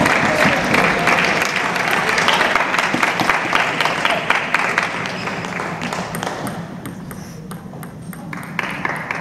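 Table tennis crowd cheering and clapping, with the ping of the ball during the rally, fading out after about six seconds. A single sharp ball hit near the end.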